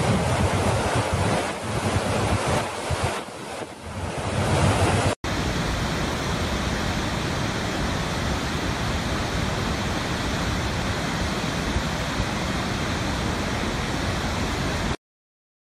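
Large waterfall's rushing water with wind buffeting the microphone. About five seconds in an abrupt cut gives way to a steadier rush from another waterfall, which stops suddenly near the end.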